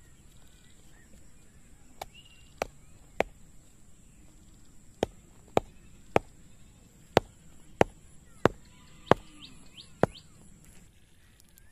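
Bamboo stakes being driven into the ground, their tops struck with a hand tool: about eleven sharp knocks, mostly in runs of three or four a little over half a second apart.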